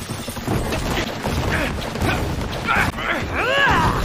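Cartoon fight sound effects: a low rumble of crashing debris with scattered impacts, over which a voice gives short grunts and, near the end, a cry that rises and falls in pitch.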